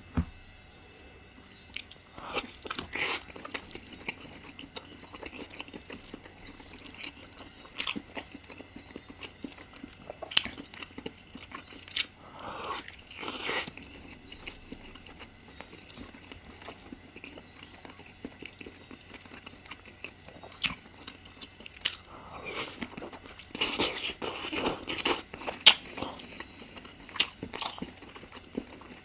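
A person eating spicy chicken curry close to the microphone: irregular bites and chewing, mouth clicks and short noisy bursts coming in clusters, busiest near the end.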